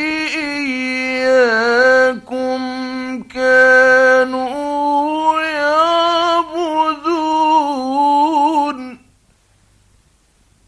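Male Quran reciter chanting in the ornate mujawwad style: long drawn-out melismatic phrases with wavering, ornamented pitch, broken by two short breaths about two and three seconds in. The voice stops about nine seconds in, leaving only faint recording hiss.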